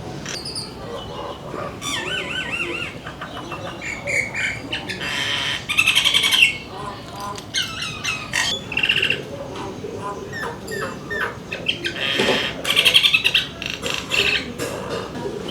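Songbirds chirping and calling, with quick repeated warbling notes and several louder trilled phrases, the loudest about six seconds in and again about twelve to thirteen seconds in.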